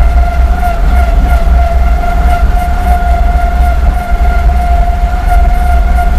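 Homemade self-propelled vehicle on the move: its engine and drivetrain run steadily under load, with a heavy low rumble and a steady high-pitched whine over it.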